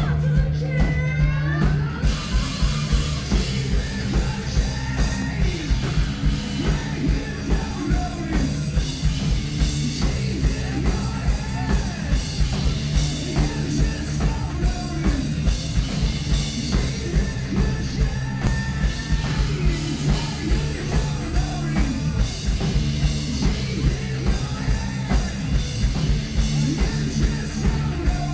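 Live rock band with singing over drums, electric guitar and keyboards, driven by a steady beat. The cymbals and full band come in about two seconds in.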